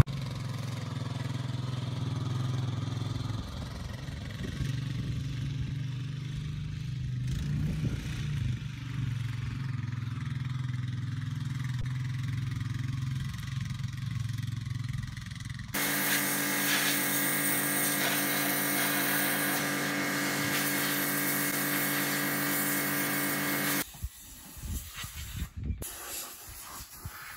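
Quad bike engine running steadily at low revs while towing a car. About halfway through the sound changes to a brighter, denser hum for several seconds. Near the end the engine sound is gone, leaving quieter rustling and one sharp knock.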